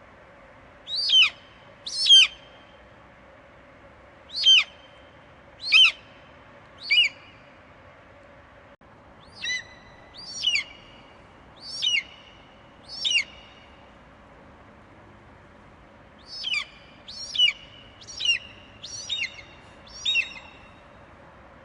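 Eagle screeching: about fourteen short, sharp calls, each falling steeply in pitch, given in loose groups of two, three, four and then five, over a faint steady hum.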